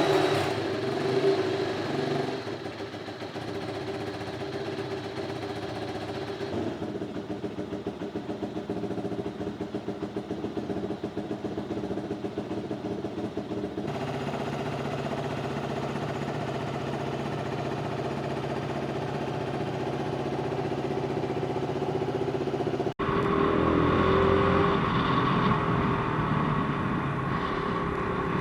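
QJMotor SRK300S motorcycle engine running just after start-up, with a couple of louder blips in the first seconds, then idling steadily.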